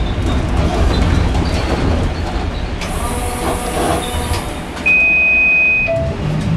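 Bombardier Flexity Outlook streetcar running on its rails, heard from inside the car: a steady low rumble, with a brief high squeal and hiss about three seconds in. About five seconds in, a steady high beep lasting about a second cuts in, louder than the ride noise.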